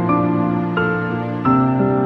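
Background music of long held notes, with a new chord coming in about one and a half seconds in.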